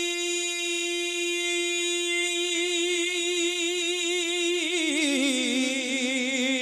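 A man's voice holding one long sung note through a microphone and loudspeakers. The note is steady at first, starts to waver about two and a half seconds in, and slides down to a lower, wavering note near the end.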